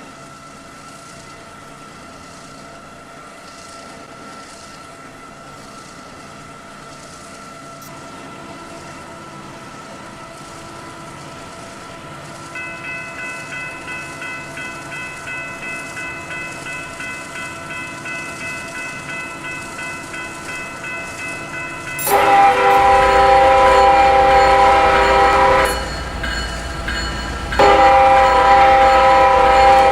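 An approaching diesel freight train hums steadily and grows louder. From about 12 seconds in, a bell rings rhythmically. Then the lead locomotive, CSX 840, sounds its multi-chime air horn in two long blasts over a heavy engine rumble.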